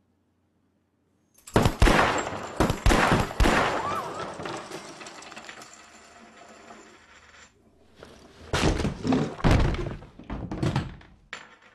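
Revolver shots and heavy wooden thuds in a quick volley about a second and a half in, ringing out in a long echo, with a thin high ringing tone under them. A second volley of shots and thuds comes about eight and a half seconds in.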